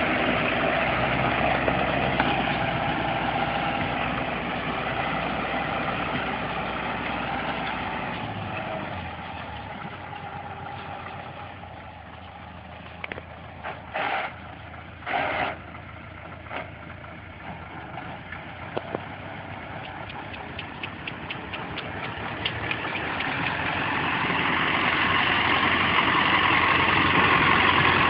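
Engine running, fading away over the first ten seconds or so and growing louder again in the last third, with a few short loud bursts while it is quiet in the middle.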